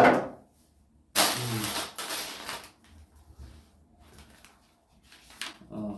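A craft-kit box and its paper and plastic packaging being opened and handled on a table. It starts with a sudden knock, and about a second in comes a long rustle lasting over a second. Soft scattered taps follow, with a short rustle near the end.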